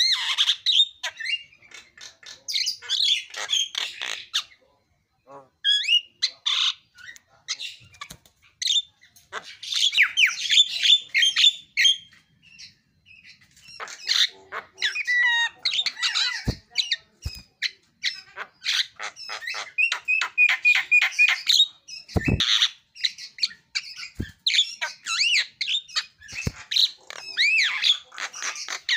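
Javan myna in full song: a long, varied run of harsh squawks, clicks, gliding whistles and rapid chatter, broken by a couple of short pauses. A few dull knocks sound in between.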